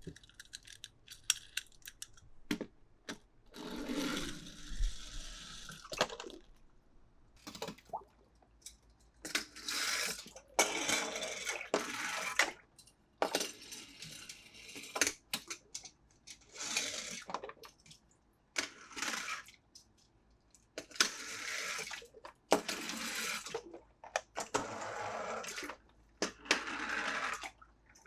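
Plastic toy packaging being handled: repeated bursts of crinkling and rustling, each a second or two long, with sharp clicks and taps between them.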